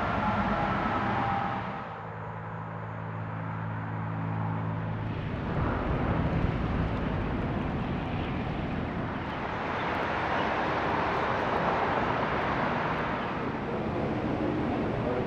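Outdoor background rumble and hiss with a distant engine hum, a steady droning pitch between about two and five seconds in, and the noise swelling again around ten to thirteen seconds.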